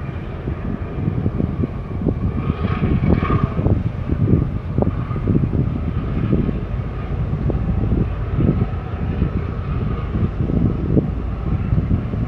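Low engine rumble from a harbour tug pushing against the hull of a berthing container ship, with a steady machinery hum over it and wind buffeting the microphone in irregular gusts.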